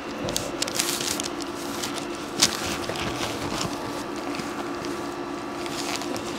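Light rustling and clicks of hands and clothing on a chiropractic table, then one sharp crack about two and a half seconds in, typical of a joint cavitating during a chiropractic adjustment. A steady low hum runs underneath.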